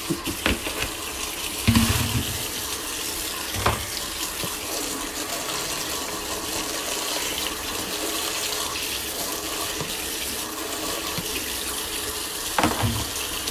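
Kitchen faucet running steadily, water splashing onto a pile of live blue crabs in a stainless sink. A few knocks break through, the loudest a low bump about two seconds in and another near the end.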